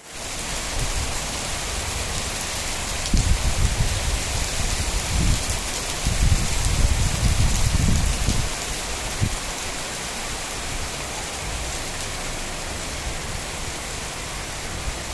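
Steady rain falling and pattering on surfaces, a dense even hiss. Low rumbling swells rise under it between about three and eight seconds in, then settle.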